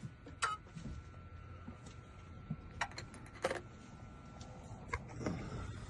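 A few faint, sharp clicks and light taps, spaced irregularly, over a faint steady high hum.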